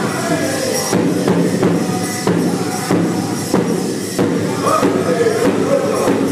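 Powwow drum group playing a large shared drum in a steady beat of about one and a half strokes a second, with the men singing in chorus over it.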